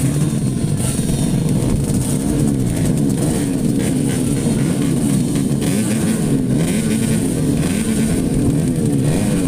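A row of modified underbone (bebek) racing motorcycles running together on the start line, their engines revving up and down over one another.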